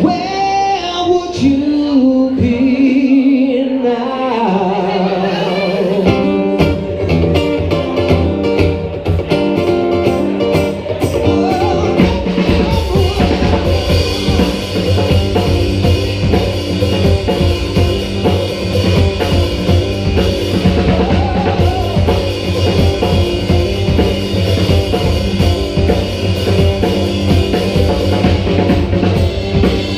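Live band playing a song on acoustic guitar, electric keyboard and drum kit, with singing. The drums come in about six seconds in, and from about twelve seconds the full band plays a steady groove with a strong bass line.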